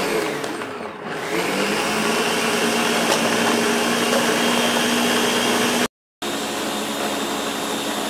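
Countertop blender motor running hard, grinding frozen pineapple and cucumber chunks into a purée for a dairy-free sorbet. Its pitch and level dip about a second in and then recover to a steady run, and the sound cuts out completely for a moment about six seconds in.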